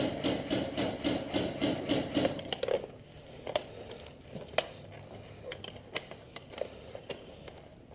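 Airsoft high-capacity magazine being wound, a steady ratcheting clicking about four times a second that stops about three seconds in. Scattered single sharp clicks follow.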